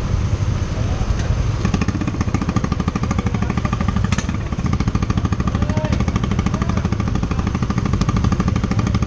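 Yamaha Aerox scooter's single-cylinder engine running under way, with a fast, even pulsing exhaust beat and a single sharp click a little after four seconds.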